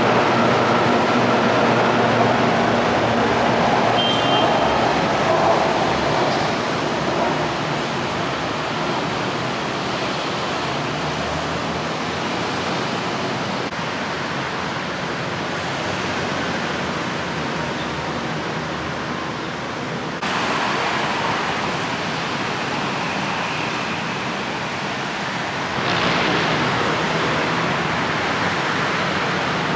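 A BTS Skytrain train fades away over the first several seconds, its running tones dying out. It leaves a steady rushing background noise that turns abruptly louder about twenty seconds in and again about twenty-six seconds in.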